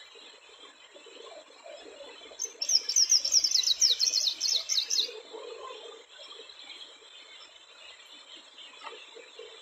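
A small songbird sings one fast phrase of about a dozen high, downward-sweeping notes. The phrase starts about two and a half seconds in and lasts under three seconds, over faint steady background noise.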